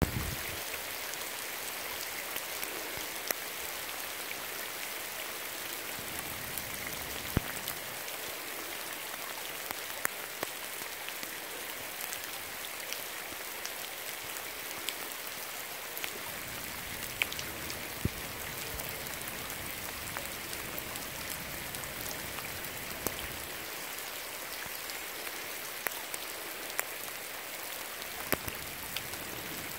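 Heavy rain falling on a river's surface: a steady hiss of drops, with scattered sharper ticks of single drops, a few of them much louder than the rest.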